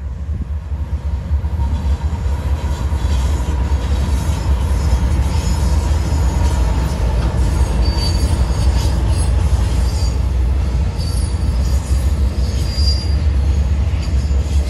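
Norfolk Southern diesel freight locomotives passing close, their low engine rumble growing louder over the first couple of seconds, followed by double-stack intermodal cars rolling by on the rails. Short high-pitched wheel squeals come through near the middle and again near the end.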